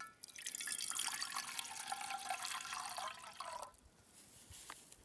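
Water poured in a stream into an aluminium canteen cup, splashing against the metal and then stopping, followed by a faint rustle and a click near the end.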